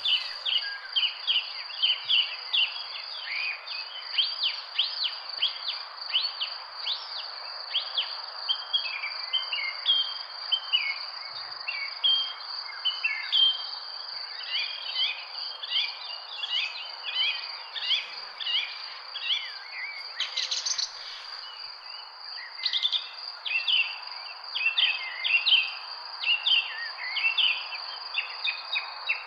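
Several songbirds chirping and twittering in quick, overlapping bursts, over a steady high-pitched insect drone and a soft background hiss.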